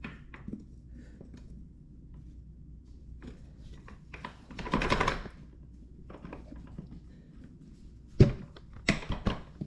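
Handling noises from fitting a tyre and wheel into a tight housing: scattered light clicks, a brief scraping rustle about halfway through, and a sharp knock near the end followed by a few clicks.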